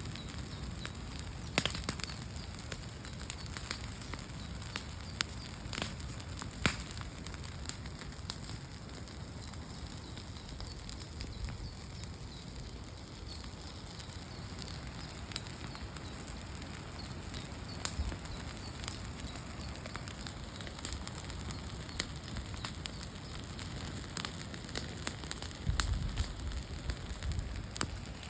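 Wood campfire burning, crackling over a steady hiss with scattered sharp pops, a few of them loud. A short low rumble comes near the end.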